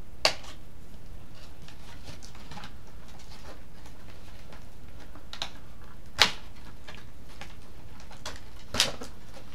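Cardboard packaging being handled and opened: soft rustling broken by three sharp snaps, one just after the start, one about six seconds in and one near the end.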